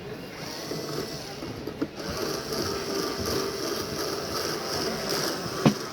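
Screws being tightened into a smart lock's mounting on a door, with a small click about two seconds in and a sharper knock near the end, over a steady background hum.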